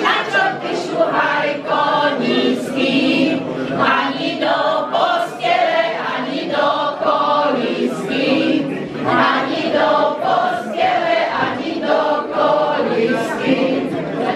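A small group of voices, mostly women with a man among them, singing a Slovak folk song together without accompaniment.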